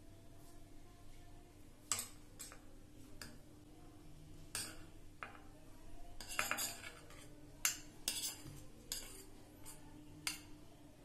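Metal spoon scraping grated cheese out of a small ceramic bowl into a ceramic mug: irregular clinks and taps of metal on ceramic, about a dozen, with a quick cluster around the middle.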